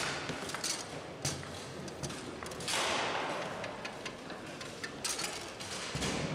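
Foosball play on a Bonzini table: a quick, irregular series of sharp clicks and knocks as the ball is struck by the figures and bangs off the table walls. There is a short rushing noise about three seconds in and heavier thumps near the end.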